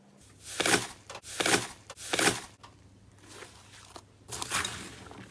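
Slime being pressed and squeezed by hand, giving several short bursts of squishing noise with quiet gaps between.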